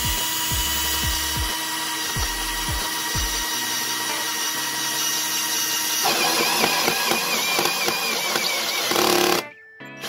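Cordless drill spinning a hole saw as it cuts through a plywood wall; it starts suddenly, runs steadily, and stops suddenly near the end.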